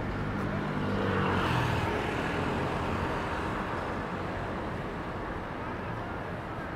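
City street traffic: a motor vehicle's engine hums at the start, one passes by with a swell in sound about one and a half seconds in, and steady traffic noise follows.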